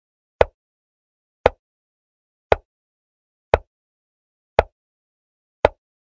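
Digital chess board's piece-move sound effect: a short click, six times at about one a second, one for each move as the game is played through.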